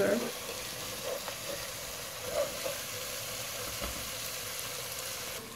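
Masala paste and onions frying in hot oil in a saucepan, a steady sizzling hiss, while a wooden spatula stirs through them.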